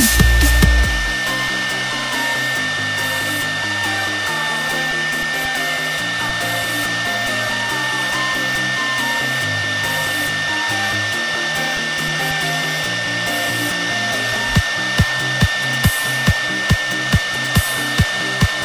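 CNC router spindle running with a steady high whine as it carves a wood relief panel, mixed with background music: a low bass line changing notes every second or so, joined about three-quarters of the way in by a regular kick-drum beat of about two to three beats a second.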